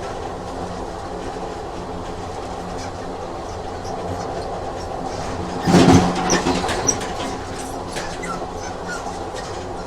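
Train sound effect: a train running with a steady rumble, and a louder burst of rattling about six seconds in, followed by a few short high squeaks.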